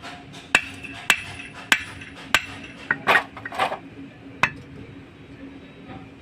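Hammer striking steel parts on a truck propeller shaft during universal-joint cross replacement: four sharp metallic blows about half a second apart, then a few duller clanks and knocks.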